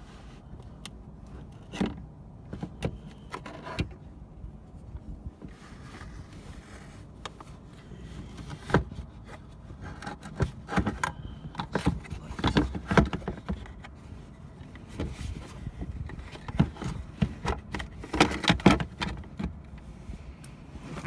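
Hands working the front turn signal socket and its wiring out of a car's front corner: scattered plastic clicks and knocks with rubbing and scraping, busiest in the second half.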